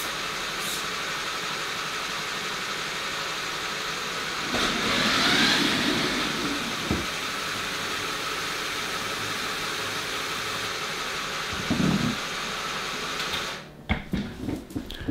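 Lego electric motors and gearing of an automated model gantry crane running steadily. There is a louder swell about a third of the way in and a thump near the end. The running cuts off suddenly, followed by a few light plastic clicks.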